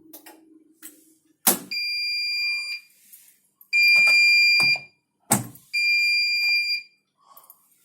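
An appliance's electronic beeper sounding three steady, high beeps, each about a second long and about two seconds apart, each one just after a sharp click.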